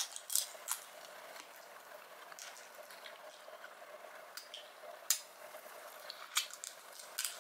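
Quiet, scattered wet mouth smacks and clicks from licking sauce off fingers and then biting into a boiled shrimp.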